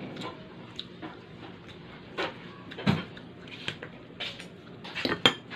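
Eating and table-handling noises: chewing and mouth sounds with a string of short clicks and knocks as a bottle and the plate are handled, the loudest near the end.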